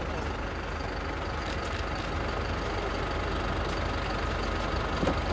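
Heavy vehicle engine running steadily, with a faint steady high whine over it and a few light knocks.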